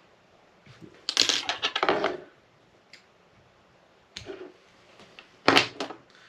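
Clicking and rattling of small jig-tying tools being handled at the bench: a burst of rapid clicks lasting about a second, then a single sharp clack near the end.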